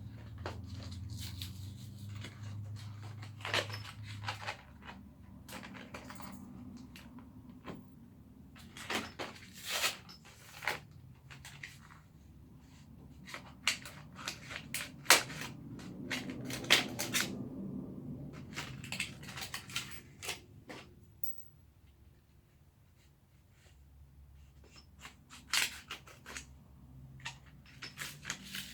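Irregular clicks, knocks and rustles of chair parts and small hardware being handled and sorted during flat-pack chair assembly.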